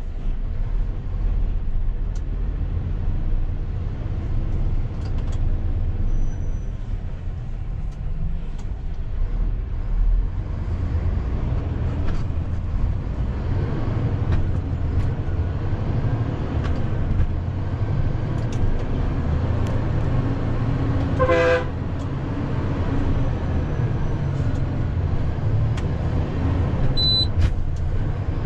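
Hino 500 truck's diesel engine running steadily under way, heard from inside the cab. A vehicle horn gives one short toot about 21 seconds in.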